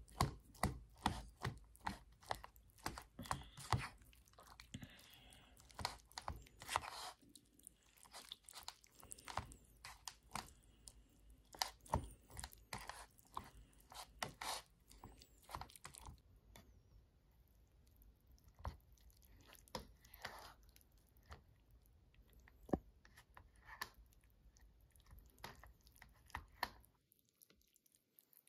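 Metal spoon stirring and mashing rice into leftover spicy noodle sauce in an instant noodle cup, with quick scrapes and clicks against the cup. The strokes come thick and fast at first and thin out about halfway through.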